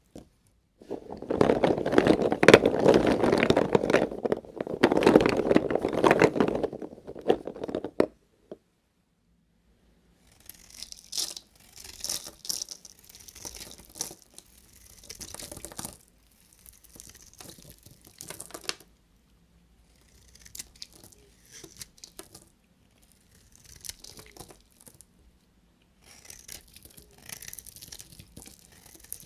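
Bars of soap being cut with a knife: crisp, scraping crunches as the blade goes through, in short separate strokes over the latter two-thirds. It is preceded by a louder stretch of dense crackling and crunching, several seconds long, starting about a second in.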